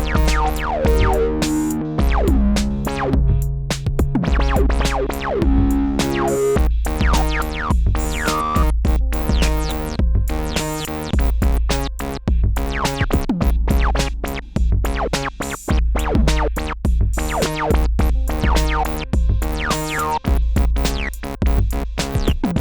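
Dave Smith Prophet 6 analog synthesizer playing chords and decaying notes with downward filter sweeps, over a steady kick-drum beat from an Elektron Analog Rytm drum machine.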